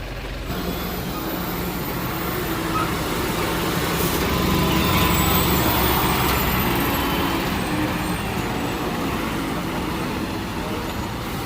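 Heavy truck's diesel engine labouring on a steep, broken climb. It grows louder toward the middle and then eases off again.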